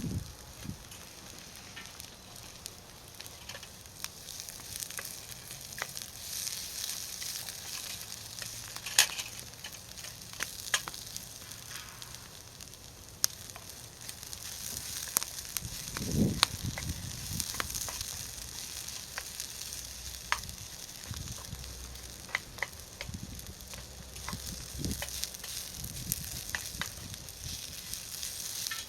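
Food sizzling and frying in an aluminium skillet over a small wood fire, a steady hiss with scattered sharp clicks and a brief low knock about sixteen seconds in.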